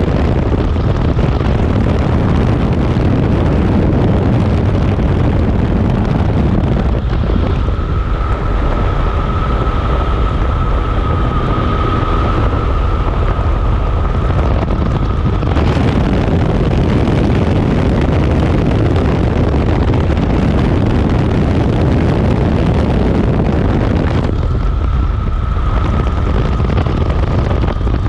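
Steady, loud rumble of a moving vehicle with wind on the microphone. A high steady whine comes in about eight seconds in, drops out around fifteen seconds, and returns near the end.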